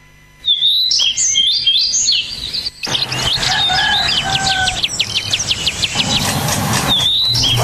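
Birds chirping and singing: quick, loud chirps and short whistled glides. From about three seconds in, a fuller background with a steady low hum comes in beneath them.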